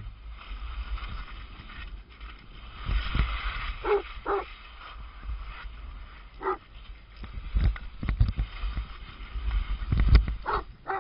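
A dog barking in short single barks: two close together about four seconds in, one more a couple of seconds later, and another pair near the end. Underneath is the hiss of skis sliding on snow.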